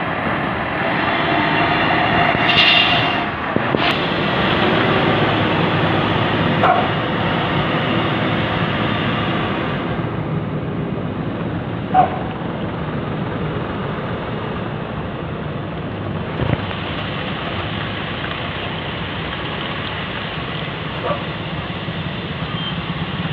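Heavy truck and backhoe loader engines running as vehicles creep past on a muddy road. The engine noise is louder for the first ten seconds. A few short sharp sounds stand out, the loudest about twelve seconds in.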